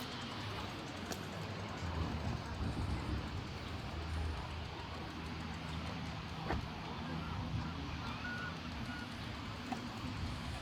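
Outdoor ambience: a steady wash of background noise with a low rumble, a few faint clicks and a brief high chirp near the end.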